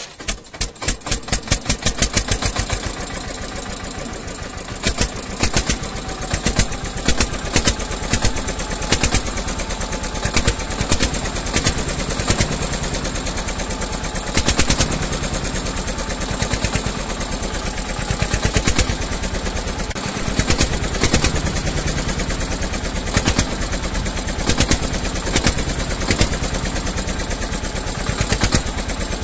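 A small engine chugs into life, its slow beats quickening over the first two seconds, then runs with a fast, steady putt-putt, with louder pops about once a second.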